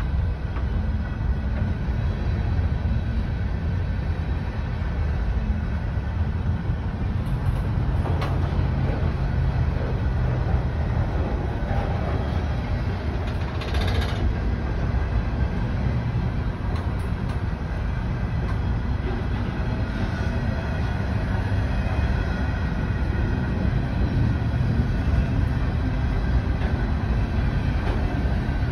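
Freight train of open-top coal hopper cars rolling past: a steady low rumble and clatter of steel wheels on the rails, with a brief sharper clank about halfway through.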